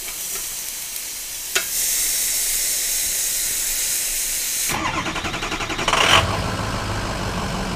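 Meat sizzling on the grate of a Weber Q1000 propane grill with a steady loud hiss and one click about a second and a half in. Near two-thirds of the way through it changes abruptly to a low engine-like rumble with a brief louder burst.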